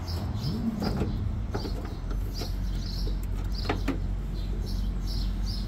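A few light clicks and taps as hands work the meter socket's fibre jaw block and its metal jaws loose, two of them close together about two-thirds of the way through. Birds chirp repeatedly behind it over a steady low hum.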